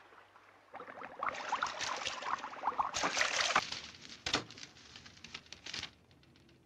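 Cellophane wrapping of a bouquet crinkling and rustling as it is carried and handled, a dense run of crackles that starts about a second in and fades near the end.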